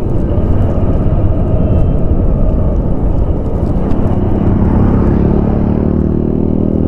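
Motorcycle running while being ridden: a steady low rumble, with the engine's hum standing out more clearly from about four or five seconds in.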